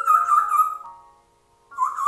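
African grey parrot giving a long, wavering, slightly falling call that fades out about a second in, then a second short call near the end, over soft piano-like background music.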